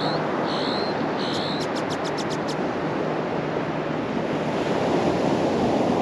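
Ocean surf washing onto a beach, a steady rushing that swells a little near the end. Over it, in the first couple of seconds, come a few high swooping chirps followed by a quick run of sharp high ticks.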